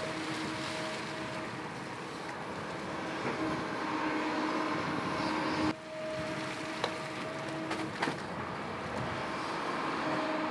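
Sany SY260 hydraulic excavator running while it digs and dumps dredged mud: a steady machine noise with a held hum over it. The sound breaks off sharply for a moment a little past halfway, and two sharp clanks follow about a second apart.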